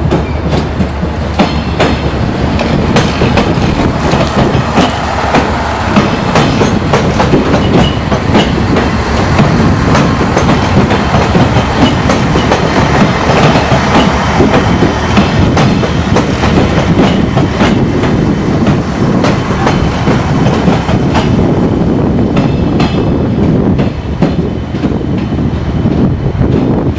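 Siemens Desiro diesel multiple unit passing, its wheels clicking irregularly over rail joints and points with the diesel running underneath.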